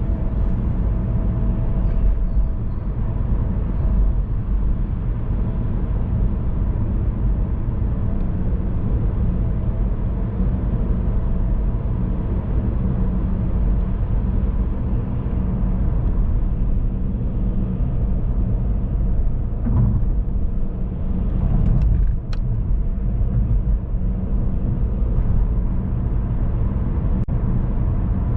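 A car driving along, giving a steady low rumble of road and engine noise. A couple of brief faint ticks come about 22 seconds in.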